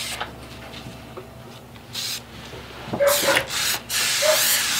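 Aerosol can of spray adhesive spraying onto the back of a paper template: a short hiss about two seconds in, then a steady spray hiss from about three seconds in. Before it comes some rustling as the sheet is handled.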